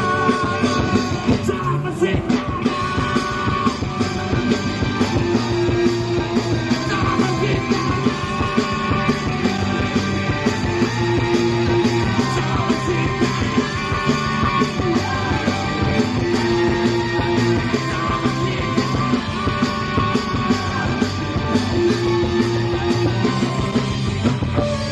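Rock band playing a punk rock song, with singing over the band.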